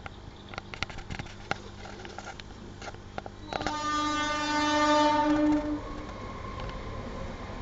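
A horn sounds one steady blast of about two seconds, after a scatter of light clicks and knocks.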